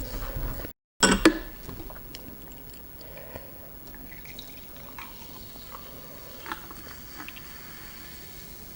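Wet eating sounds of raw oyster: soft smacking and small clicks, louder in the first second and a half, with the sound cutting out for a moment just before one second in, then quieter scattered clicks.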